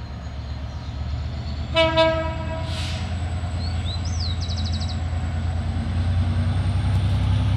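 Diesel locomotive approaching, its low engine rumble growing steadily louder, with one short horn blast about two seconds in. A small bird chirps briefly near the middle.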